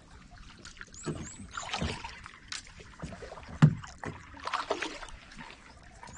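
Kayak paddle strokes through shallow water, about one stroke a second, with one sharp knock about three and a half seconds in.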